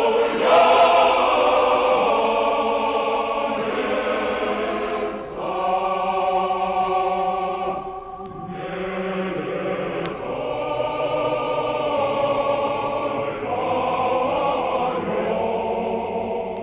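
Choir singing slow, held chant phrases, with short breaks between phrases.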